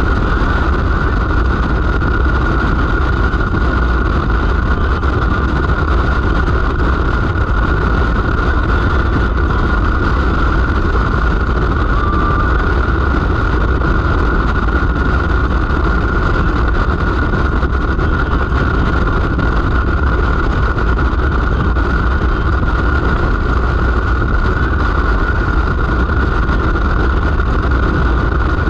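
Steady travelling noise from a vehicle cruising at road speed: heavy wind rumble on the microphone over a constant engine and road drone, with a thin steady whine. Nothing changes.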